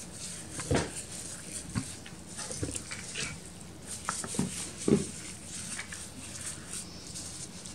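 Plastic-gloved hands working a raw whole chicken on a plastic cutting board: soft squelches of skin and flesh and glove crinkle, with a few short, light knocks about a second apart.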